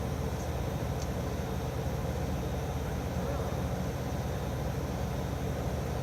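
Steady low rumbling background noise with no clear events.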